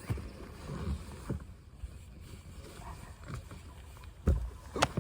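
Irregular low thumps and knocks from gear and movement, with two sharper, louder knocks near the end, over a low rumbling background.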